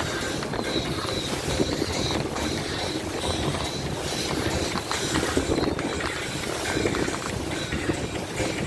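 A boat underway at sea: its engine running steadily under a continuous rush of water noise.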